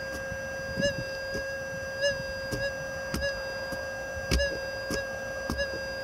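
Steady threshold hum from a White's TDI SL pulse-induction metal detector, with several brief, faint swells in the tone, each with a soft knock. The swells come as the 7.5-inch dual-field coil is swept fast over a 1.84 gram nickel buried 10 inches deep, and they are the faint target signal: it's there, but really faint.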